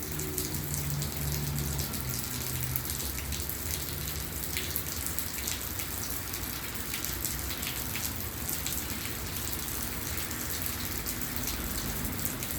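Steady rain falling, an even wash of noise with many separate drops ticking sharply against a nearby hard surface. A low hum sits under it for the first few seconds.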